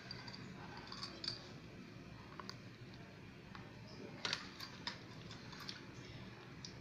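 Faint, scattered light clicks and ticks from handling chopped nuts and dried fruit while sprinkling them over cake batter in a steel pan.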